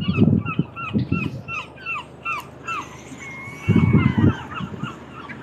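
Gulls calling: a rapid series of short yelping calls, about three a second, then a longer drawn-out call. Wind gusts buffet the microphone twice.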